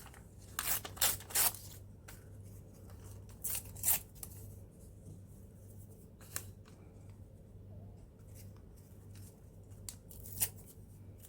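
Collage paper being handled and torn or cut: short, scratchy bursts of paper sound in a few small clusters, about a second in, near four seconds, and again about ten seconds in.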